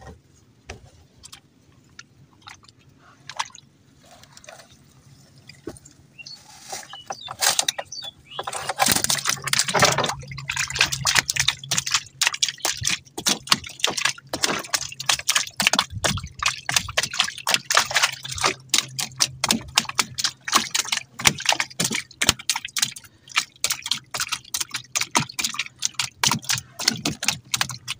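Freshly caught fish flapping and thrashing in the shallow water in the bottom of a wooden boat: rapid, irregular wet slaps and splashes, starting about seven seconds in and going on thickly.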